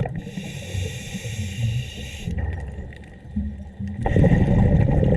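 Scuba diver's regulator breathing underwater: a hiss of inhalation through the regulator for about two seconds, then, after a pause, the low rumbling gurgle of exhaled bubbles about four seconds in.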